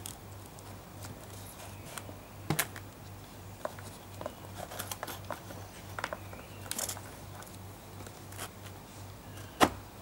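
Scattered clicks, taps and light rustles of hands fitting a wing of a scratch-built RC plane onto its spar, with one sharp knock near the end, over a faint low pulsing hum.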